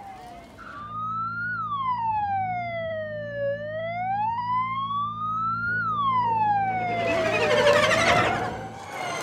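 An emergency vehicle's siren wailing, its pitch sliding slowly up and down in cycles of about four seconds, over a steady low hum. A loud rush of noise swells near the end.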